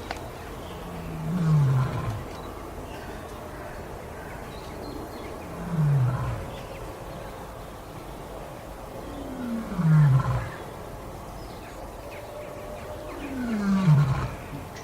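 A lion roaring: four short, low calls, each falling in pitch, spaced about four seconds apart.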